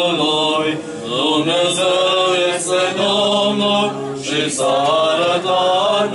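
Orthodox liturgical chant: sung voices holding long notes that slide slowly in pitch, without a break.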